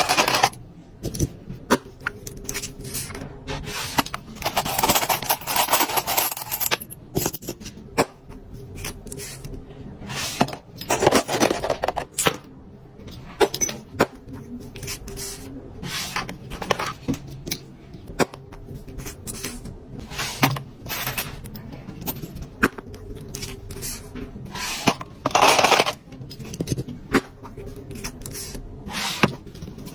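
Hands unpacking a gift box of small accessories: irregular clicks and taps as items and packaging are handled and set down, with several longer bursts of crinkling or rustling.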